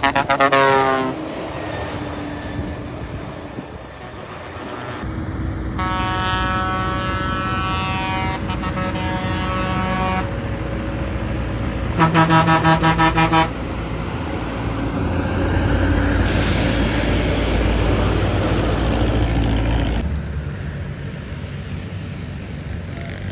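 A run of bus air horns: a blast that drops in pitch at the start, a long held blast a few seconds later, then a quick stuttering series of short toots. A loud low engine rumble follows, cut off abruptly about three seconds before the end.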